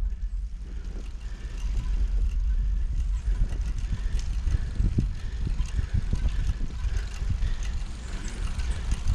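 Wind buffeting the microphone on a road bicycle under way, a heavy rumble with road noise and scattered clicks and knocks.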